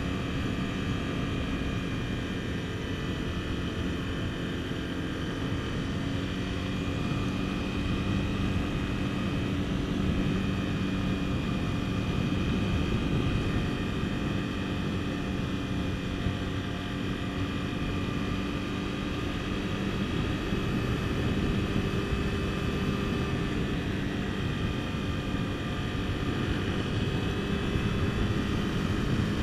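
Honda CBR250R's single-cylinder engine running steadily at cruising speed, heard from the rider's seat over a rush of wind and road noise.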